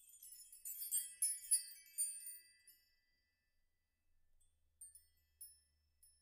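Bright tinkling chimes: a flurry of high struck notes that rings and fades over the first couple of seconds, then a few scattered notes near the end.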